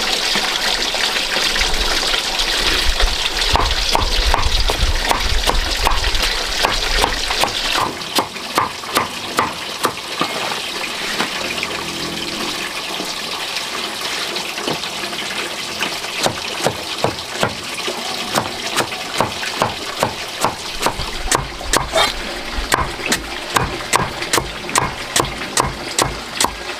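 Water running and splashing for about eight seconds, then a steady run of sharp knocks, roughly two a second.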